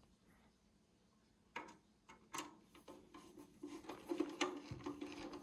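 Faint, scattered clicks and light taps from hand work with a screwdriver on the Antminer L3+ miner's metal case, coming more often in the second half.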